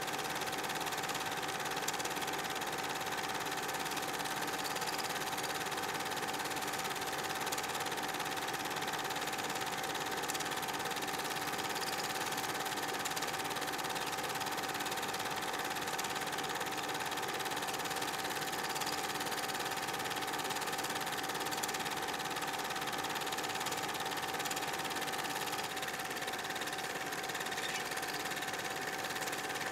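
8 mm film projector running: a steady mechanical whir with a constant high hum and no breaks.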